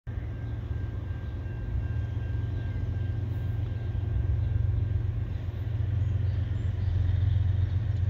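Low, steady rumble of distant vehicles, slowly growing louder.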